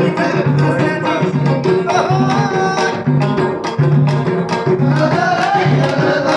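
Tashelhit amarg folk music played live: a plucked banjo and other string instruments over a steady beat of hand-drum strokes.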